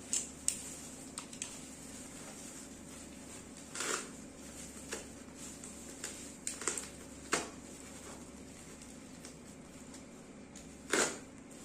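Handling and opening a parcel: scattered rustles and clicks of packaging, with a few louder rustling scrapes, the loudest near the end.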